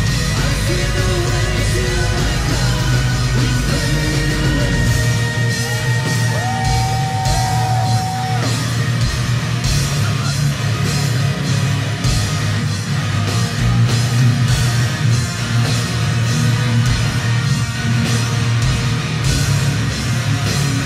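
Symphonic metal band playing live: distorted electric guitar, bass and drums, with sung vocals over them, including one long held note about six to eight seconds in.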